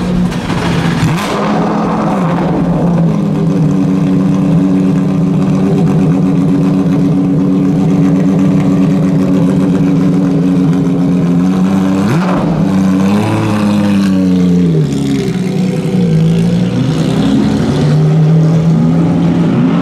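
Porsche 911 RSR race car's mid-mounted 4.0-litre flat-six idling steadily, with the revs rising and falling briefly past the middle. Near the end it pulls away, the engine note rising.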